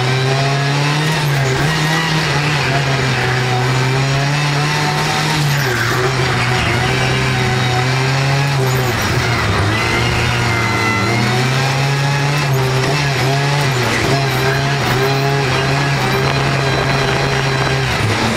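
Race car engine running hard at a fairly steady pitch, dipping briefly a few times as the driver lifts and shifts through the corners, heard from inside the car.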